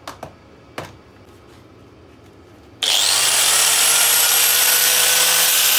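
Three short clicks, then a handheld electric angle grinder fitted with a new cutting disc is switched on about three seconds in: it spins up with a brief rising whine and runs free at full speed with a steady high whine. For an angle grinder it is not especially loud.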